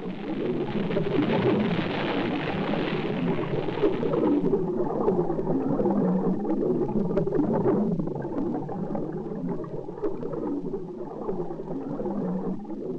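Underwater churning and gurgling of gas bubbles as a Polaris missile is ejected from a submerged submarine's launch tube and rises through the water. The sound starts abruptly and is fullest in the first few seconds, with many small crackles throughout.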